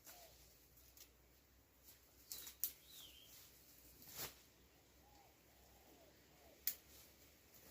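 Faint bird calls: a soft, low, cooing call repeated a few times, one short chirp about three seconds in, and a few sharp clicks about two and a half, four and six and a half seconds in.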